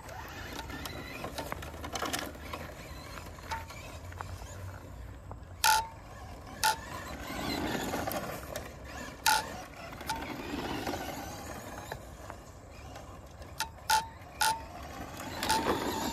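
Electric Traxxas Mudboss RC dirt-oval car running on loose dirt, its motor whine and tyre noise swelling twice in the middle as it speeds around the turns. Sharp clicks close by punctuate it, a few singly and a cluster near the end.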